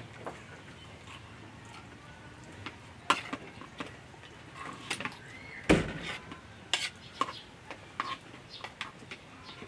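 Metal spoon clinking and scraping against a plate as someone eats rice, in scattered sharp clicks, with one louder knock just past the middle.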